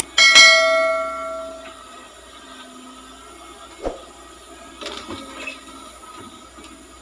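A sharp metallic clang that rings out and fades over about a second and a half, typical of a small excavator's steel bucket striking, followed by a few faint knocks.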